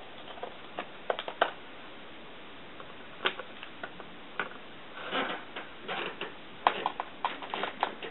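Small Phillips screwdriver working screws out of a laptop's metal display hinge: scattered light clicks and ticks, with a short scraping stretch about five seconds in.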